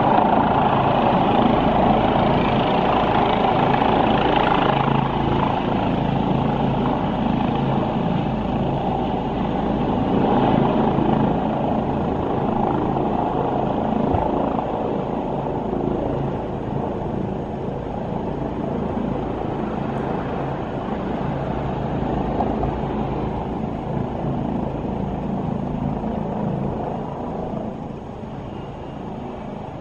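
Helicopter rotor and turbine engine running steadily as the helicopter descends to land, growing gradually quieter.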